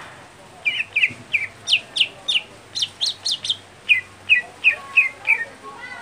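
Greater green leafbird (cucak hijau) singing a quick run of about fifteen short, sharp chirps, many sliding down in pitch. The run starts under a second in and stops shortly before the end.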